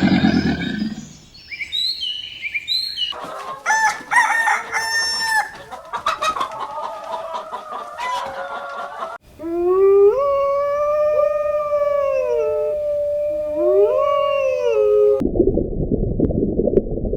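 Farm chickens: hens cackling, then a rooster's long crow lasting several seconds. These follow the fading end of a deep roar and a few short bird chirps, and the crow is cut off abruptly by a low steady noise near the end.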